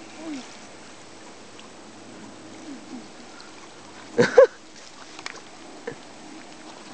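Steady rush of the river current along the bank. About four seconds in, a short, loud yelp, followed by a few faint clicks.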